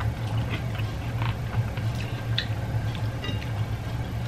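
Close-up eating sounds: scattered small clicks and smacks of chewing and of fingers picking at fried fish, over a steady low hum.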